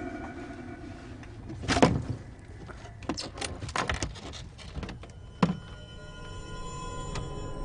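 Hands rummaging through a drawer: a loud scrape about two seconds in, a run of scrapes and rustles of papers, then a sharp knock about five and a half seconds in.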